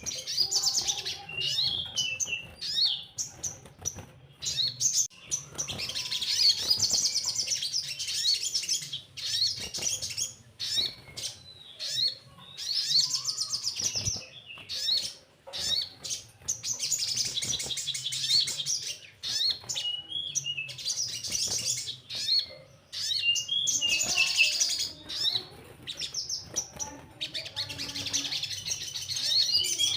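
Crimson sunbird (sogon) singing: bouts of fast, high trills lasting a second or two, repeated several times, with short sharp chips between them.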